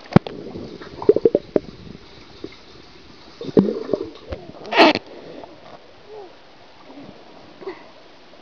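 Muffled underwater bubbling and gurgling of a swimming pool as a toddler churns through the water, with a quick run of knocks about a second in and a louder splash just before five seconds in, then quieter lapping.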